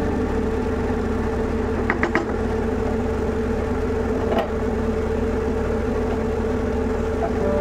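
Steady machine-like hum, with a few light clicks of a spatula against the frying pan: two about two seconds in and one more past the middle.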